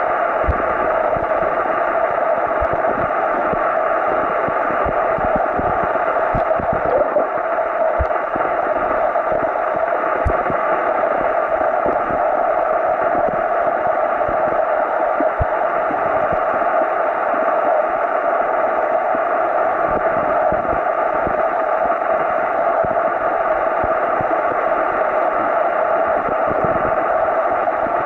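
Steady underwater noise picked up by a submerged camera: a constant rushing hiss of water with irregular faint low thumps of water moving against the camera.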